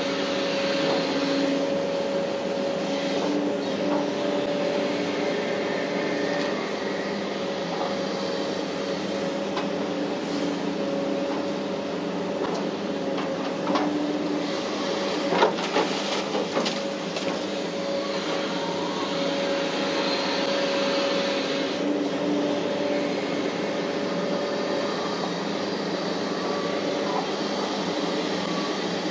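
Hitachi 850LC excavator's diesel engine and hydraulics working under load, heard from inside the cab: a steady drone with a constant whine that swells and eases as the bucket moves. A few sharp knocks sound about halfway through.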